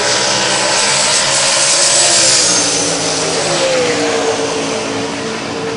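Mustang drag car's engine running loud with a high whine. The whine and engine tone fall in pitch about three seconds in, then hold steady as the sound eases off.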